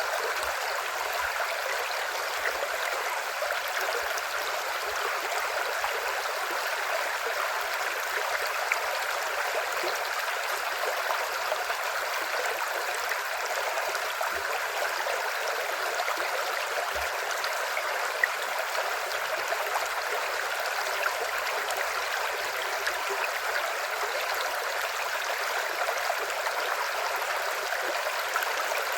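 A river's water flowing over rocks, a steady rushing and gurgling with no pauses.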